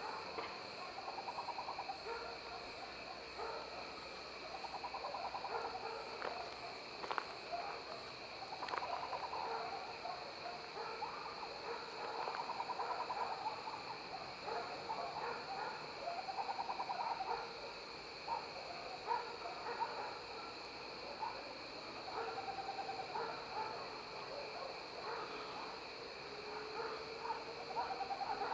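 Tropical screech-owl (Megascops choliba) singing: fast purring trills, each a second or two long, repeated every couple of seconds, over a steady high insect drone.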